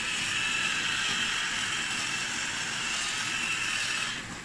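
Grinder grinding Himalayan salt over the rice: a steady grinding noise that stops abruptly about four seconds in.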